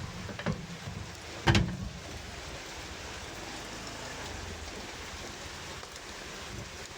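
Steady rain noise with a low rumble under it. A sharp knock about a second and a half in is the loudest thing, with a fainter knock shortly before it.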